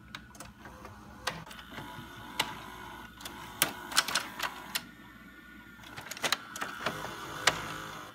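VHS tape deck sound effect: a steady mechanical whir and hum with sharp clicks at irregular intervals.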